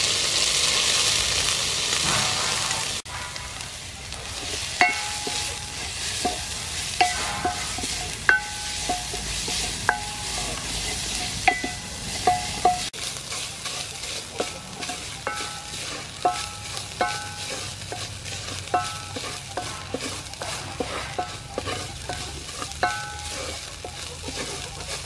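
Pounded spice paste hitting hot soybean oil in an aluminium pot: a loud sizzle for the first few seconds that settles into a steady fry as it is stirred. A spoon knocks against the pot throughout, giving short ringing taps that come several a second in the second half.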